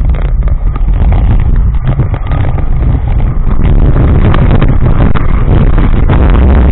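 Roller coaster train running at speed, heard from a camera riding on board: a loud, continuous low rumble with irregular rattling from the wheels and track, growing rougher and louder about halfway through, with wind on the microphone.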